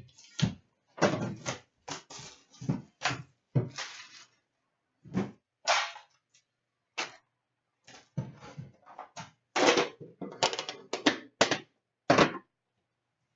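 Hands handling a hockey trading-card tin and its foil card packs: a string of short rustles, clacks and knocks with brief silences between them.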